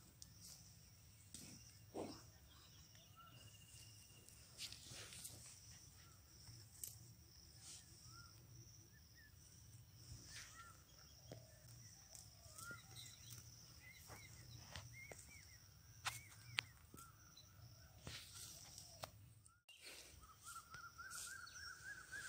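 Near silence: faint rural outdoor ambience, with a steady high insect hum, scattered short bird chirps and occasional light clicks.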